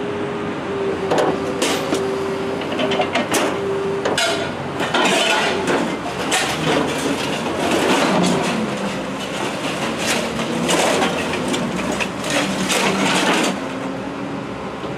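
Scrapyard material handler running while its orange-peel grapple grabs and drops scrap metal, with repeated metallic clanks and crashes. A steady whine sounds for the first few seconds, and the clatter eases near the end.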